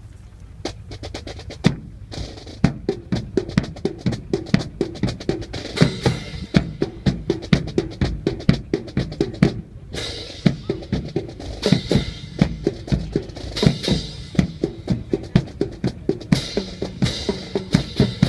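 Drums playing a fast, steady beat of snare and bass drum strikes, with a brief break about ten seconds in.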